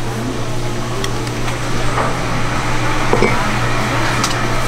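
A steady low mechanical hum, like a motor or fan, with a few light clicks and knocks.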